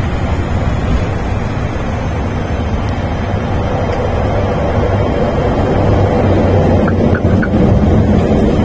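Twin-turboprop airliner (ATR 72) heard from inside the cockpit while rolling along the runway just after touchdown: a steady, loud rumble of engines, propellers and wheels, growing a little louder over the last few seconds.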